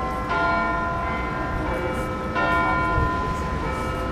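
The bells of Big Ben ringing, a new stroke about every two seconds, each one ringing on into the next.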